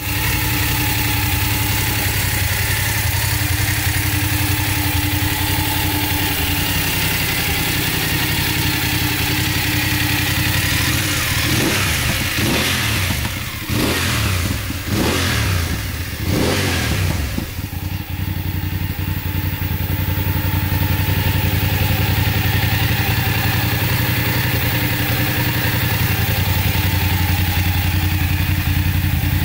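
BMW F 850 GS's 853 cc parallel-twin engine idling steadily. It is revved several times about halfway through, rising and falling in pitch, then settles back to idle.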